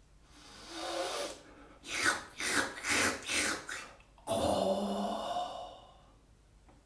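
A performer's wordless breathing noises for a puppet: a long drawn breath, then a quick run of five short breathy puffs, then a longer voiced exhale that fades away.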